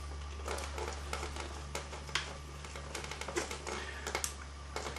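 Faint scattered clicks and taps of a wall switch and its stiff copper wires being handled at the electrical box, over a steady low hum.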